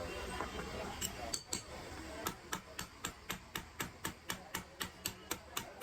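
Sharp metallic clicks or taps in a steady rhythm of about four a second, starting about a second in, over a low hum.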